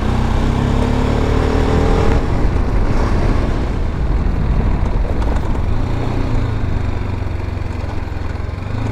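Motorcycle engine accelerating, its pitch rising for about two seconds, then running steadily under wind and road noise while riding a rough dirt track.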